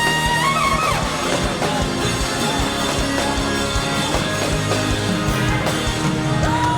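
Live worship band playing upbeat praise music with a steady drum beat, and a long held high note near the start and again near the end.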